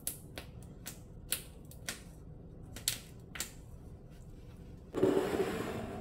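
Light, sharp clicks and taps from a child's fingers working crumbly bath bomb mixture into mould halves on a countertop. About five seconds in, a louder scraping rustle lasts about a second as a hand scoops the dry mixture in a glass bowl.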